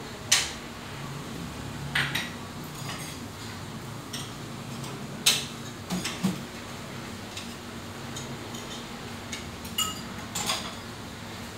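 Irregular sharp clinks and clicks of dishes and cutlery being handled, some ringing briefly, over a steady low hum.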